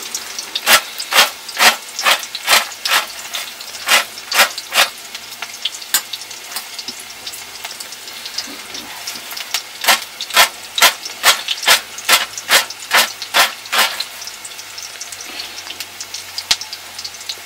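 Oil sizzling in a wok on a wood fire, with two runs of sharp, evenly spaced knocks, about two or three a second, one near the start and one in the second half.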